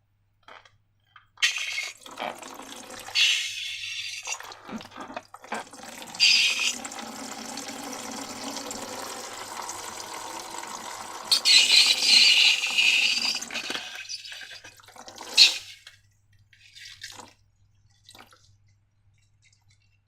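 Liquid being poured and sloshed as slime ingredients are handled. There are louder wet splashing rushes about 3, 6 and 12 seconds in, and the sound stops about 16 seconds in, followed by a few faint clicks.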